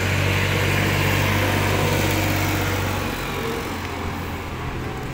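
An engine running steadily close by, a low hum that eases off about three seconds in.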